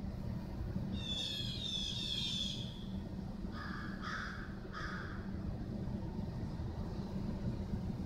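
Crow cawing three times in quick succession about four seconds in, over a steady low rumble of city traffic. A high-pitched squeal, falling in pitch, runs for about two seconds just before the caws.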